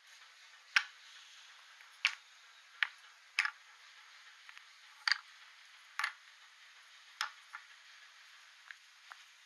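Small carved wooden toy tyres being set down one at a time on a wooden tabletop: a series of light, sharp wooden clicks and knocks, about seven at irregular intervals with a few fainter taps between.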